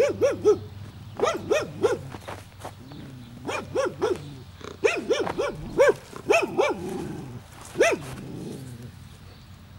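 Barking in quick runs of about three barks, each run a second or so after the last, ending with a single bark about eight seconds in.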